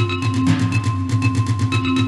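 Music for four pitched percussion instruments: a rapid, steady drumming pattern of struck notes on a few fixed, monotonous pitches that overlap and ring on.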